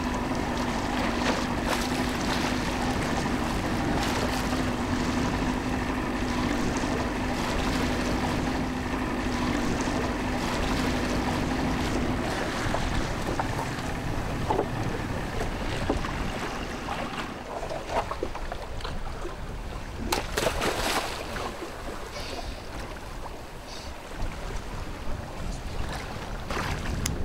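Outboard motor running on an open wooden fishing boat, its steady hum stopping about twelve seconds in. Wind on the microphone and water against the hull go on throughout, with a few knocks and rattles later as the wire-mesh fish trap is handled in the boat.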